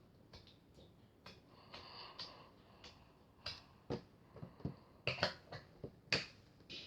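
Irregular sharp clicks and light knocks, a few scattered early on and then coming more thickly, with the loudest about five and six seconds in.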